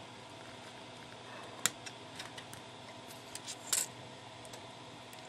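A few faint clicks and crackles from the thin plastic flex-circuit strip of a Vaisala RS92 radiosonde's sensor being bent between the fingers, with two sharper clicks about one and a half and three and a half seconds in.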